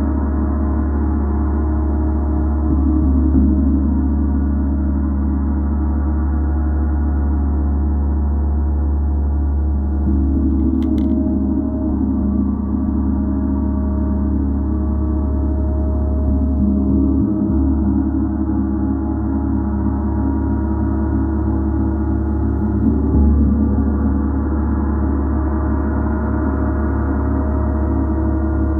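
Gong played continuously in a sustained, shimmering wash of many overlapping tones with a deep hum beneath, swelling gently every several seconds as it is struck or rubbed again.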